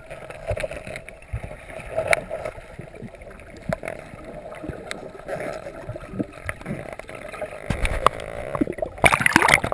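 Underwater sound picked up through a waterproof camera housing: a low murmur of water with many scattered sharp clicks and crackles, then a loud rush of water noise about nine seconds in.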